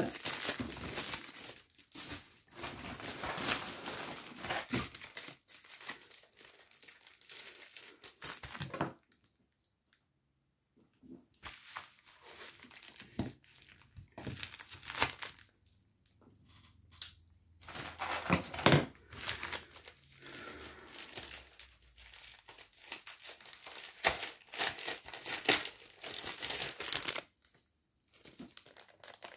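Plastic packaging crinkling and rustling as it is handled, on and off, with a couple of brief pauses.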